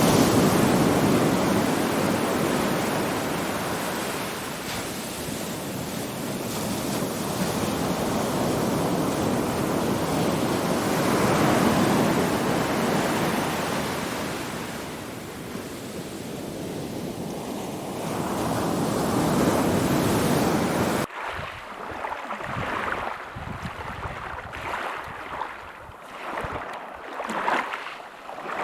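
Ocean surf: a wash of breaking waves that swells and ebbs in slow surges every several seconds. About three-quarters of the way through it cuts off suddenly to a quieter, choppier sound of water sloshing in short, irregular splashes.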